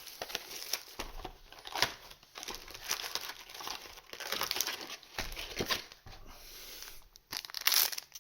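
Trading card booster pack wrappers crinkling and tearing open in irregular rustling bursts, loudest near the end.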